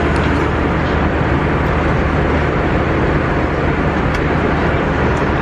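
Steady engine and air noise inside a jet airliner's cabin in flight, with a constant low hum beneath.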